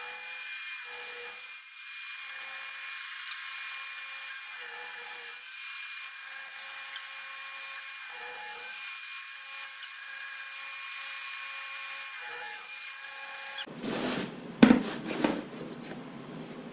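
Delta table saw running and cutting MDF as a crosscut sled is pushed through the blade: a steady whine that cuts off suddenly near the end. A few knocks follow as a steel square is laid on the sled.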